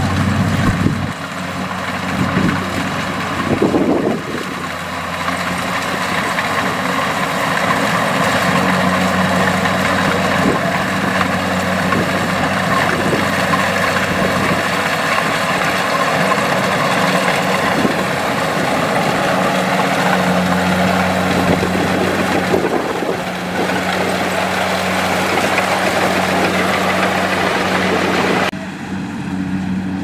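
Kubota DC-70 Plus rice combine harvester working under load as it cuts and threshes rice: a steady diesel engine drone under the rushing whir of its cutter and threshing machinery. The sound turns quieter and duller near the end.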